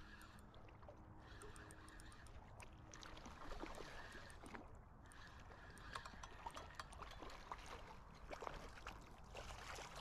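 Faint sounds of a smallmouth bass being reeled in: light splashes of the fish at the water's surface and scattered ticks from the spinning reel, a few slightly louder splashes around four, six and eight seconds in.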